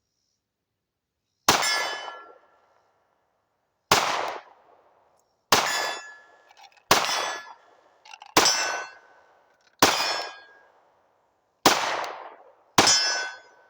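A Glock 19 Gen 5 pistol fired eight times at a steady, unhurried pace, each shot a sharp crack followed by a bright metallic ring lasting about a second, typical of rounds striking a steel target.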